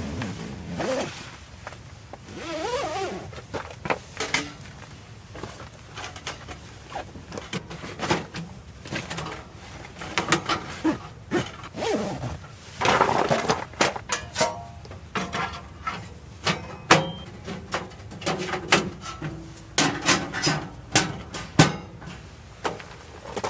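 Irregular knocks, clicks and clatter of objects being handled, with a few brief squeaky glides among them.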